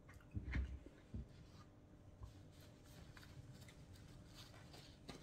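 Faint eating and handling sounds: a plastic fork scraping and knocking in a bowl of food, with a couple of louder knocks about half a second and a second in, then light scratchy rustling and small ticks.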